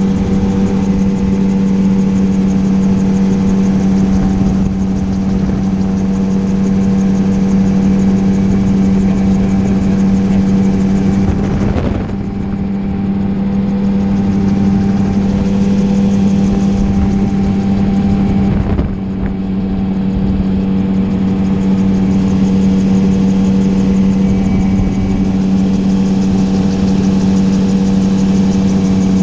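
Gyroplane engine and propeller running at a steady cruise drone, mixed with rushing wind. The sound dips briefly twice, about twelve and nineteen seconds in.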